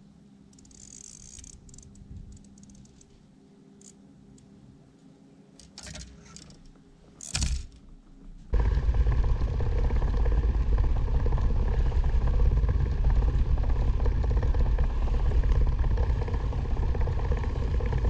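Light scrapes and clatter, then about eight seconds in a sudden switch to a loud, steady rush of a small boat under way: motor and wind noise that runs on to the end.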